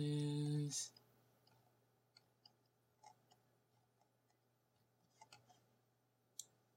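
Faint computer mouse clicks while scrolling through a document, a few at a time at irregular intervals, the sharpest near the end.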